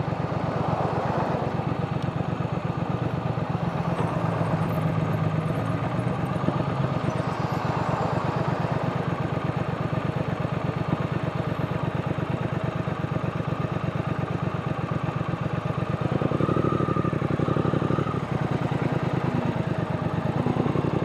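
Triumph Speed Twin's parallel-twin engine running steadily, with a rapid even firing pulse throughout.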